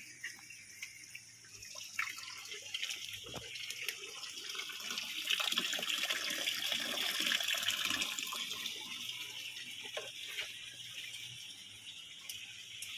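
Water running in a hydroponic nursery tray: trickling from a perforated PVC feed pipe across the shallow tray and splashing down the drain pipe into the reservoir tank below. The rush of water grows louder a few seconds in and then eases off.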